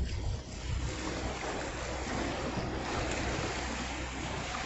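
Ocean surf washing against jetty rocks, with a rush of water that swells about halfway through and eases near the end. Wind buffets the microphone underneath as a low rumble.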